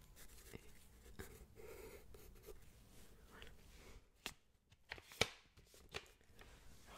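Faint pencil scratching and the rustle of a paper sketchbook being handled, with a few sharp taps about four to six seconds in, the loudest near five seconds.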